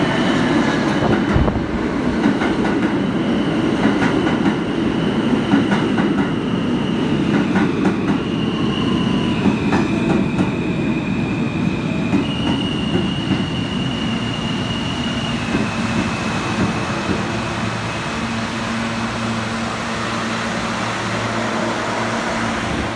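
R160 subway train pulling into the station and braking to a stop: heavy wheel rumble and clatter on the rails, with a high electric whine that steps to a new pitch several times as it slows. The rumble eases off through the second half, leaving a steady low hum from the standing train.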